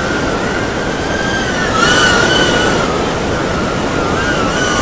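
Micro FPV drone's motors whining in flight, the pitch wavering up and down as the throttle changes, a little louder about two seconds in.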